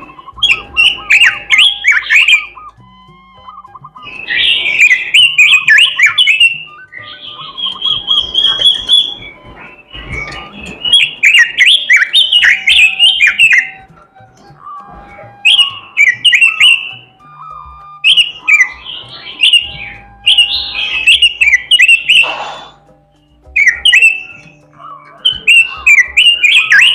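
Pekin robin (red-billed leiothrix) singing vigorously: loud, rapid warbling phrases of one to three seconds each, separated by short pauses.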